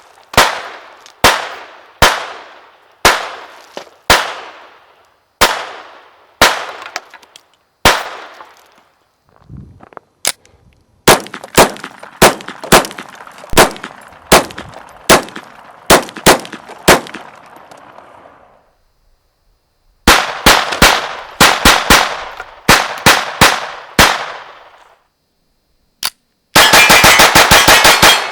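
Ruger 22/45 .22 LR semi-automatic pistol being fired in strings. First comes about one shot a second, then quicker strings of about two shots a second with short pauses between them, and near the end a very rapid burst of shots.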